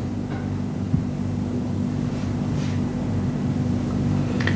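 Steady electrical mains hum from the powered test bench, with one faint click about a second in.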